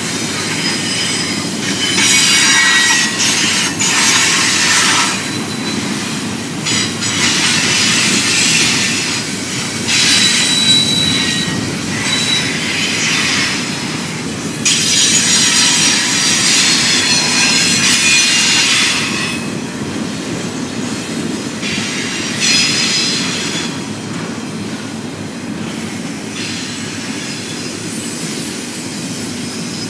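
Double-stack intermodal freight cars rolling past in a steady rumble, with the wheels squealing in repeated bouts of a few seconds each.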